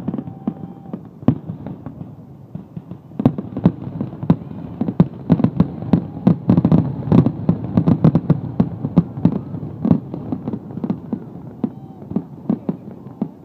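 Aerial fireworks bursting in a rapid run of bangs, thickest from about three seconds in to about ten seconds, then thinning out.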